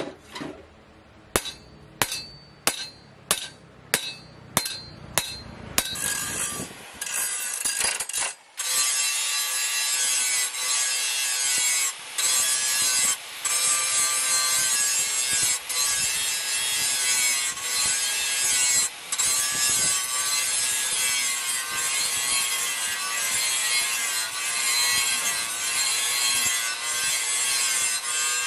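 About nine hammer blows on a knife blade held on a steel anvil, roughly two a second, each with a short metallic ring. Then an angle grinder runs against the steel blade, grinding off rust: a steady hiss with a wavering motor whine, broken briefly a few times.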